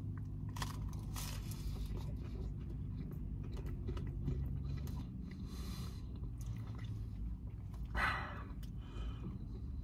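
A man biting into and chewing a fried chicken sandwich with crispy fried onions: soft crunching and wet mouth sounds over a low steady hum, with a slightly louder bite or chew about eight seconds in.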